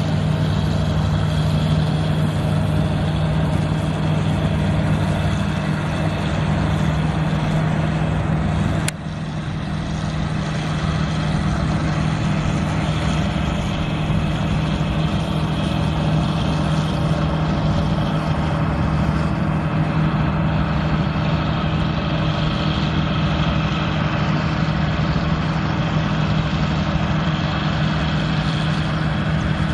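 Engine running steadily at a constant speed, a low even hum, with a click and a brief drop in level about nine seconds in before it carries on unchanged.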